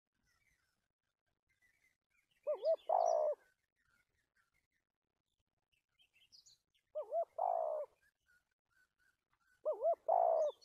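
Spotted dove cooing three times, each phrase a quick curved double note followed by a longer held coo, a few seconds apart. Faint chirps of small birds in between.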